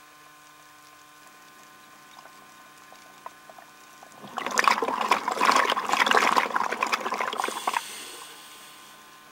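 Scuba diver exhaling through the regulator: a loud burst of bubbling and crackling for about four seconds starting a little before halfway, fading away near the end, over a faint steady hum.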